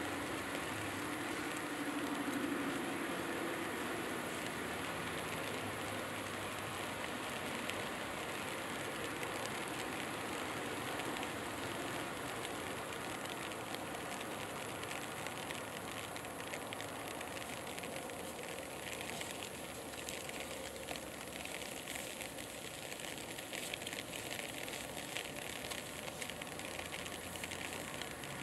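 Steady ambient noise, a constant hiss with a faint low hum and no distinct events.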